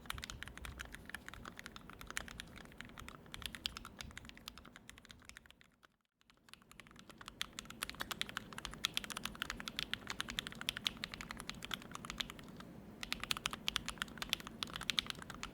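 Fast continuous typing on a KBDfans D65 mechanical keyboard with lubed linear Turquoise Tealios switches and an aluminium plate, many keystrokes a second. The typing fades out about six seconds in and stops briefly. It then resumes with a brighter, louder clack, as a different keycap set is tried.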